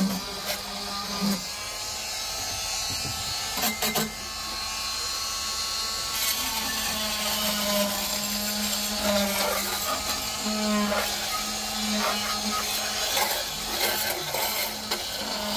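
Corded Chicago Electric oscillating multi-tool running with a flexible stainless-steel scraper blade, scraping old rubber sound deadening off a car's metal floor pan. A steady buzz with a scraping rasp, and a couple of sharp clicks about four seconds in.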